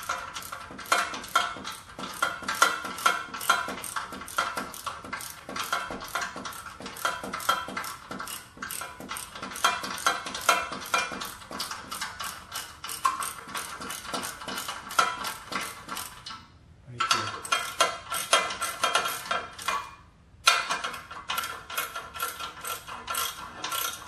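Socket ratchet wrench clicking rapidly and evenly as it turns the nut on a spring-loaded exhaust flange bolt, loosening it to give the joint play. The clicking stops briefly twice near the end.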